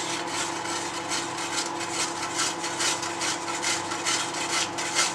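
Block of cheese rubbed up and down a hand grater: a steady run of rasping strokes, about three a second.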